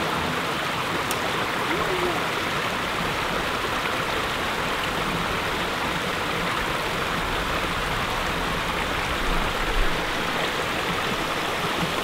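Small forest stream splashing steadily over rocks in a little cascade, with a brief low thump near the end.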